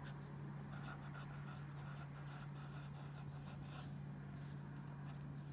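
Pen writing on lined notebook paper in joined handwriting: short scratching strokes, mostly in the middle of the stretch, over a steady low hum.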